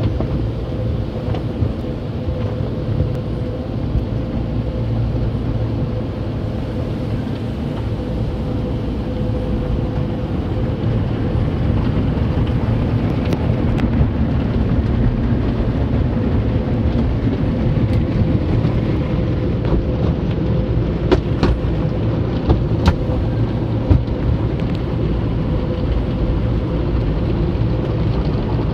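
Automatic car wash heard from inside the car's cabin: cloth strips and brushes rubbing and slapping over the windshield and body while water and foam spray onto the glass, making a steady loud rumble with a constant hum underneath. Sharp taps and knocks come through now and then in the second half.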